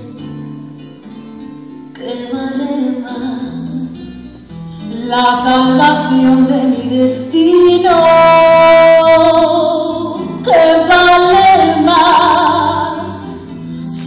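A woman sings a bolero live, accompanied by guitars and harp. Her voice grows stronger about five seconds in and holds a long high note near the middle.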